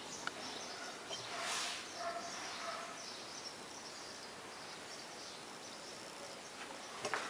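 Quiet background noise with a small click near the start and a brief rustle about a second and a half in.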